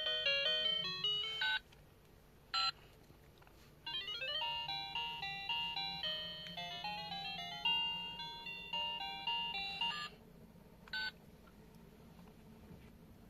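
Toy phone's electronic tune, a tinny melody of stepped beeping notes that stops, gives a single short beep, plays again for about six seconds, then gives another short beep.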